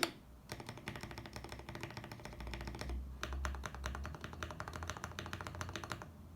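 Typing on a KBD67 Lite mechanical keyboard with lubed and filmed Gateron milky yellow linear switches: fast runs of keystrokes. The typing breaks briefly about three seconds in and stops about a second before the end.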